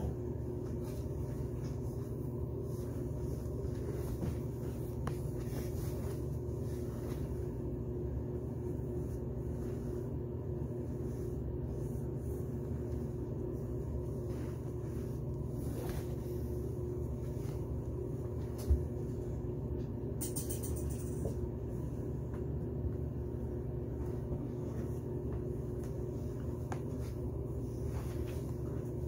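A steady low mechanical hum, with faint scuffing of cloths being shuffled underfoot across a tiled floor and a single sharp knock about two-thirds of the way through.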